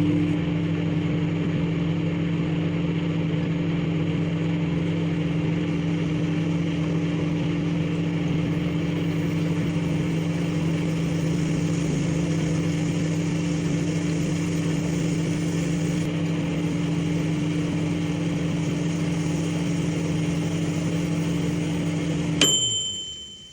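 Microwave oven running with a steady low hum and fan noise, then shutting off near the end with a click followed by a high beep.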